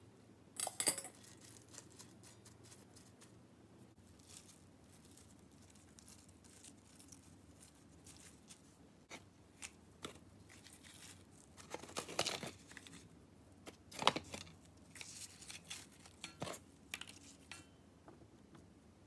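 Soybean sprouts tipped from a mesh strainer into a cast-iron pan, with a short rustle about a second in. Then scattered soft rustles and light knocks as sliced onion and rolls of thin-shaved pork belly are laid on top, the loudest about fourteen seconds in.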